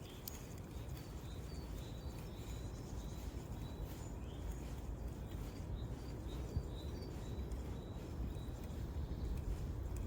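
Faint, scattered high chirps of small birds over a steady low rumble.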